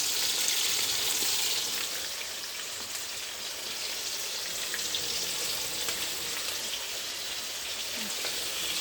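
Chicken pieces frying in a pan of hot oil: a steady sizzle with a few small pops.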